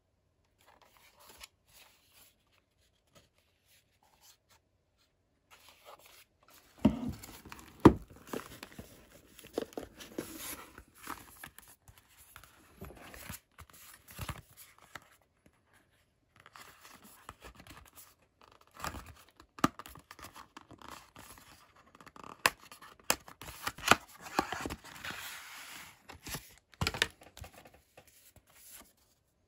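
Hands handling packaging and paper manuals: rustling paper and card with several sharp taps and knocks, starting about seven seconds in.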